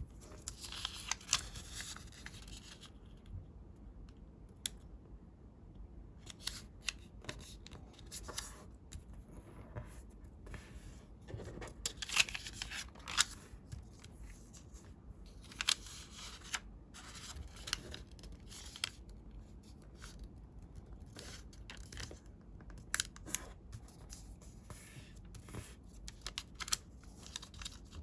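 Colored origami paper being handled and folded by hand: irregular crisp rustles, slides and sharp creasing snaps, some louder than others.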